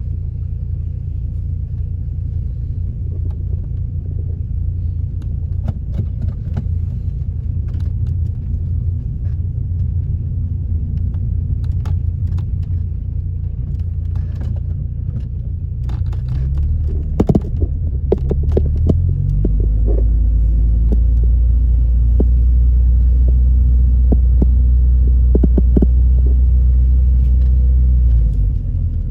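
Car driving, heard from inside the cabin: a steady low road-and-engine rumble with scattered knocks and rattles. About two-thirds of the way in the engine note shifts and a louder low drone holds for several seconds, dropping back shortly before the end.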